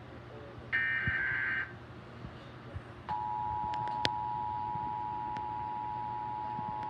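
Emergency Alert System tones over broadcast TV audio: about a second in, a brief shrill burst of the digital SAME header data, then from about three seconds the steady two-tone EAS attention signal starts and holds.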